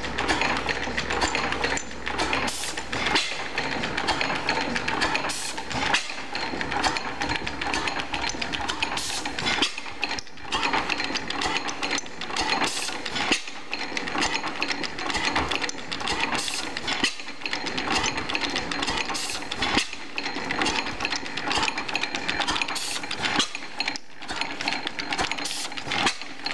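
5 HP Springfield hit-and-miss gas engine running: a steady clatter of its valve gear, sideshafts and governor, with a sharp bang every two to three seconds at uneven spacing as the hit-and-miss governor lets it fire.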